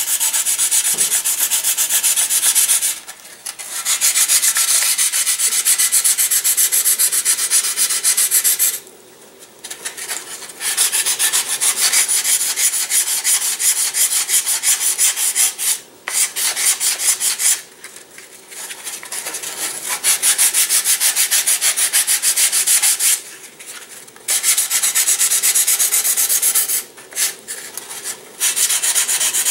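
Small wooden part sanded by hand against a sandpaper-wrapped sanding block in rapid back-and-forth strokes, in bouts of several seconds with short pauses between.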